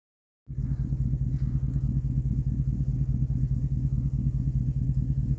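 Truck engine running steadily, a low even pulsing drone that starts suddenly about half a second in.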